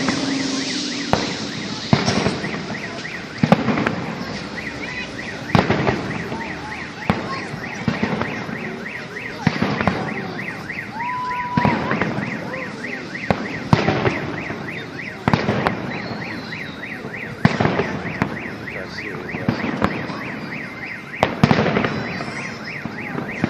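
Fireworks salute shells bursting, a dozen or so booms one to two seconds apart, each with a trailing echo. Under them a car alarm sounds steadily in rapid repeating chirps.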